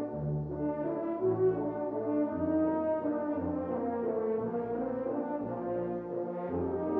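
A French horn choir playing sustained chords in an ensemble passage, the bass notes moving to a new pitch about once a second.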